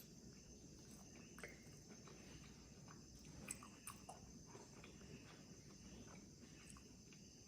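Faint chewing and mouth sounds of a person eating, with a few soft clicks scattered through, over a faint steady high tone.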